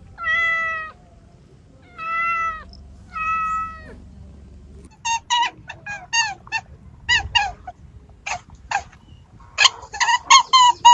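An animal calling: three drawn-out calls in the first four seconds, then from about five seconds a fast run of short calls that grows busier near the end.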